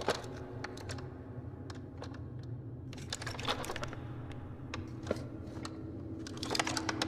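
Irregular light clicks and rattles, in small clusters, over a steady low hum.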